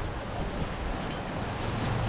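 Wind on the microphone: an uneven low rumble under a steady hiss.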